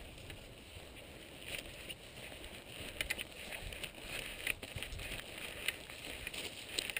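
Footsteps and rustling along a grassy path, irregular short scuffs that start about a second and a half in, over a low rumble of wind on the microphone.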